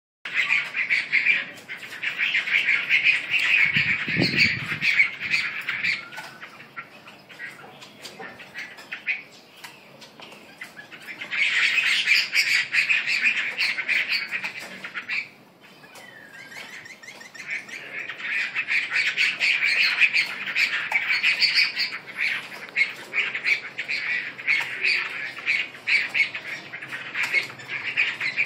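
Caged songbirds singing in long bouts of rapid, dense chattering, broken by a pause of several seconds about a third of the way in and a shorter one about halfway. A brief low thump about four seconds in.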